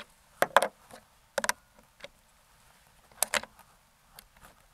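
Sharp mechanical clicks in quick clusters of two or three, spread a second or so apart: the Umarex Hammer .50 calibre PCP air rifle's bolt and magazine being worked while it is reloaded between shots.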